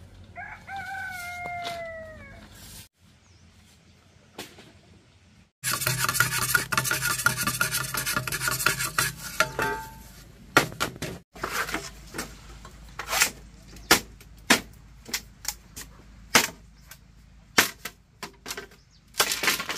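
Curved billhook knife working a green bamboo pole: a few seconds of rapid scraping strokes, then sharp chops at irregular intervals, about one to two a second. A rooster crows once near the start.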